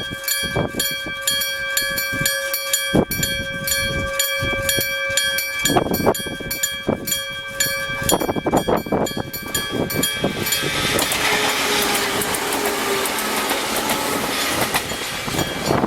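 Gong-type level-crossing bell ringing out rapid, evenly repeated metallic strikes. About ten seconds in, a Sangi Railway train passes through the crossing, and the rumble of its wheels on the rails covers the bell. Wind buffets the microphone in gusts.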